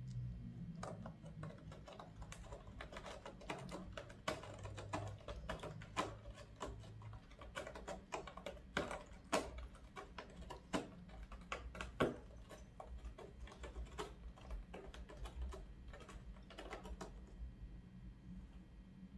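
A cat's claws clicking and scratching irregularly as it paws at a hardwood floor and the base of a cardboard scratcher. The loudest clicks come around the middle, and they stop shortly before the end.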